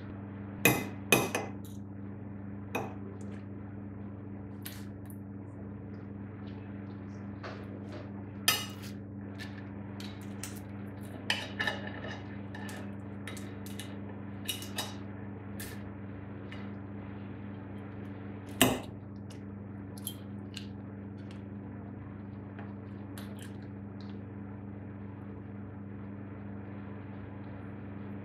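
Metal knife and fork clinking and scraping against a ceramic dinner plate while cutting food, in scattered sharp clinks. The loudest come about a second in and again about two-thirds of the way through, over a steady low hum.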